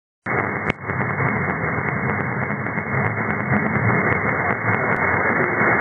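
Hiss and static of an AM radio receiver tuned to 1650 kHz, where the weak signal of the distant station is buried in the noise. It sounds narrow and muffled, as through the receiver's AM filter. The noise cuts in suddenly, with a click just after and light crackles throughout.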